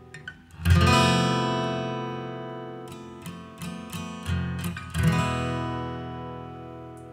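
Background music on acoustic guitar. A strummed chord rings out about a second in, a few single picked notes follow, and another strummed chord rings out and fades about two-thirds of the way through.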